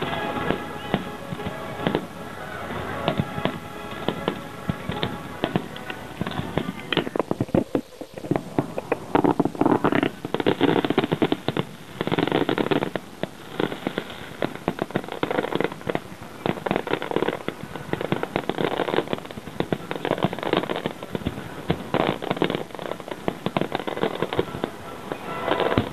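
Aerial fireworks shells bursting in quick succession, bang after bang with crackling, while music plays along with the show. There is a brief lull about eight seconds in, then louder, denser bursts.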